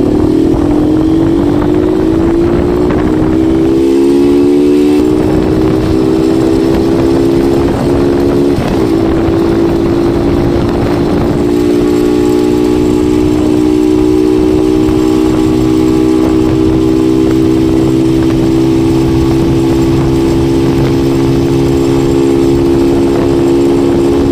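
TVS Sport's 110 cc single-cylinder engine, fitted with a modified air filter, pulling hard with its pitch rising over the first few seconds, then cruising at a steady note. Heard from the rider's seat with wind rushing on the microphone.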